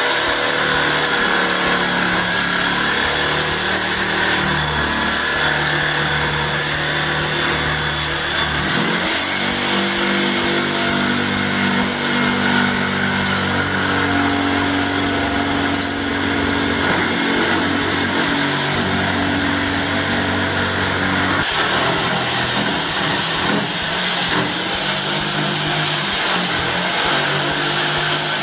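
Bosch jigsaw cutting through a plaster ceiling, its motor and blade stroke running continuously with the pitch shifting up and down in steps as the cut goes. A steady high whine runs underneath throughout.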